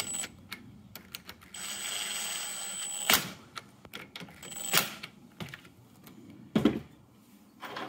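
Cordless drill with a socket extension spinning a terminal bolt down on a hybrid battery pack in two short runs, the first about a second and a half long and the second about half a second, each ending in a sharp click, with scattered small clicks and knocks between.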